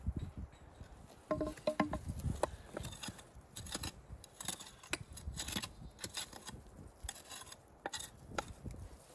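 Gloved hand digging and scraping in dry clay and loose rock: an irregular run of scuffs and small knocks, with a few short ringing clinks of stone against stone about a second and a half in.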